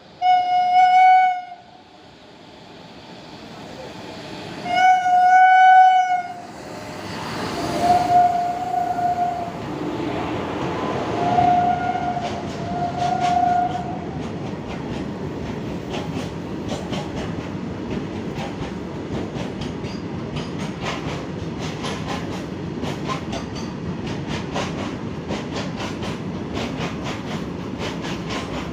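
Goods train's locomotive horn sounding five times: two long, loud blasts, then three shorter, fainter ones. The rumble of the train grows as it comes on, then settles into a steady rumble of wagons passing with a regular clatter of wheels over rail joints.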